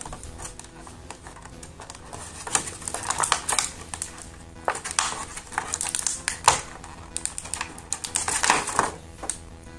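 Thin clear plastic blister tray crinkling and crackling in the hands as a small plastic accessory is pried out of it, in irregular bursts of sharp clicks. Faint background music underneath.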